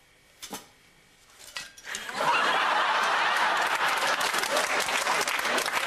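A short clink of glasses, then about two seconds in a studio audience breaks into loud laughter and clapping that carries on steadily.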